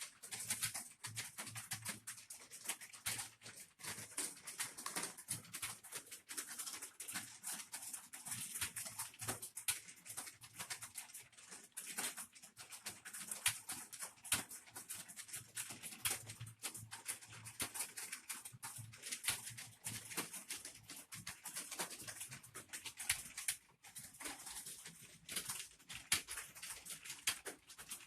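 Computer keyboard being typed on quickly and continuously: a dense, uneven clatter of key clicks, as in a timed typing test.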